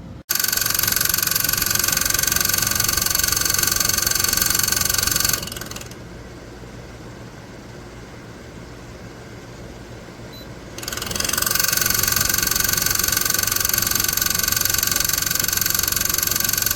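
Kesnos 80-pint dehumidifier running: a loud airy fan rush with a steady whine. About five seconds in it drops to a quieter hum for around five seconds, then swells back to full. It starts and stops abruptly.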